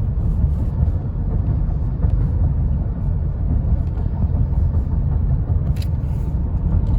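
Steady low rumble of a 2010 Honda Odyssey minivan driving, heard from inside the cabin. Its 3.5-litre V6 pulls smoothly with no misfire, the rough running cured by fuel system cleaner.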